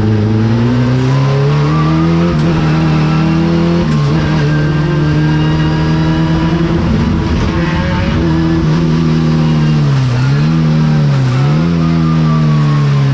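Race car engine heard from inside the cabin, pulling hard under throttle. The pitch climbs over the first few seconds and then holds high, with a short drop about four seconds in and two quick dips and recoveries near the end.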